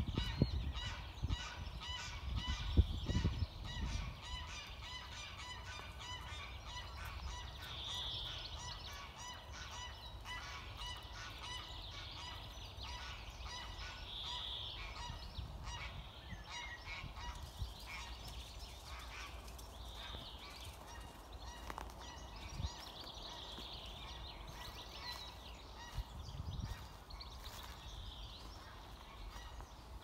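Birds calling over and over in short, repeated calls, several overlapping, with low thumps on the microphone in the first few seconds.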